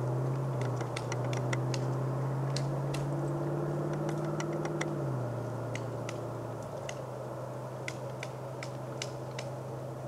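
Pileated woodpecker pecking and prying at tree bark: scattered sharp taps in irregular clusters, not a drum roll. Under them runs a low steady engine hum that drops in pitch about five seconds in.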